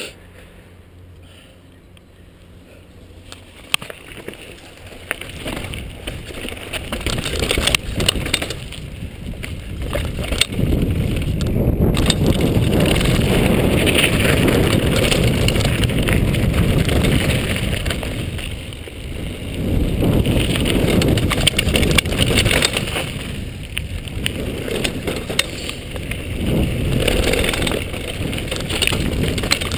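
Mountain bike descending a dirt trail at speed, heard from a chest-mounted GoPro: wind rushing over the microphone and knobby tyres rolling over dirt, with rattles and knocks from the bike. Quiet at first, it grows loud a few seconds in as the bike picks up speed, easing briefly twice later on.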